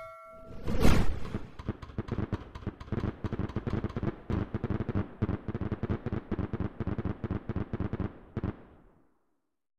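Fireworks going off: one loud bang about a second in, then a rapid string of sharp pops and crackling bursts, several a second, that fades out near the end.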